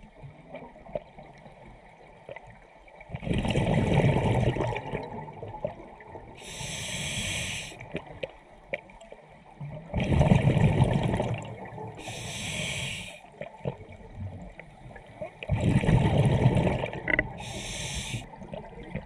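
A scuba diver breathing through a regulator underwater, about three breaths. Each breath is a short hiss of inhaled air through the demand valve, then a louder, low bubbling gush as the exhaled air leaves the exhaust valve.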